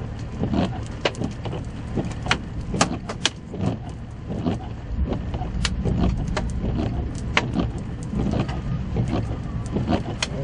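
Storm wind rumbling and buffeting around a stopped vehicle, gusting stronger about halfway through, with scattered sharp ticks and taps throughout.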